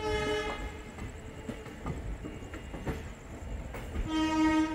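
Express train running on the rails, with a low rumble and irregular clicks of the wheels over rail joints. A horn sounds two short blasts, one right at the start and a louder one about four seconds in.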